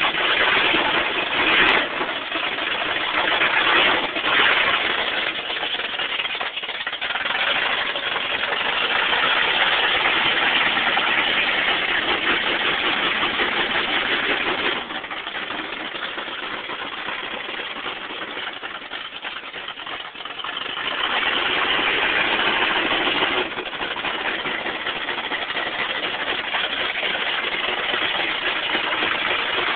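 Lifted Chevy truck's engine running as the truck drives on 53-inch loader tires, the engine sound swelling and fading, quieter for several seconds about halfway through before rising again.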